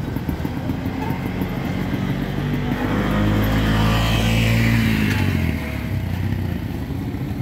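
Small motorcycle engine running at a steady pitch as it passes close by. It grows louder from about three seconds in and fades away after about five seconds.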